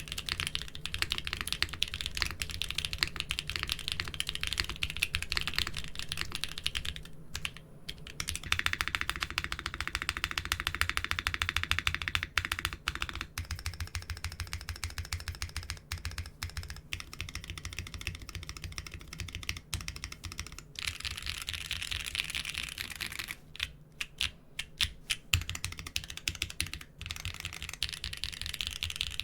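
Fast typing on a mechanical keyboard with doubleshot keycaps: a dense stream of keystrokes that breaks off briefly about seven seconds in, then resumes. A low steady hum sits underneath.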